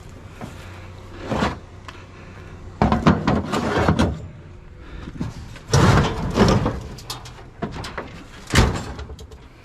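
Scrap items being shifted and jockeyed into position in a loaded vehicle, in several bursts of scraping and knocking, the loudest knock near the end.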